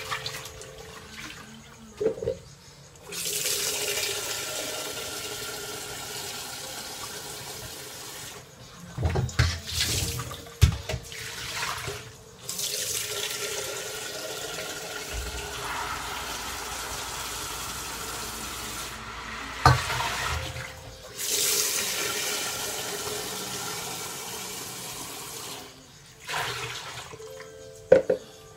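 Kitchen tap running into a sink in three long stretches while dishes are washed and a plastic jug is filled and rinsed. Several sharp knocks of dishware between the runs.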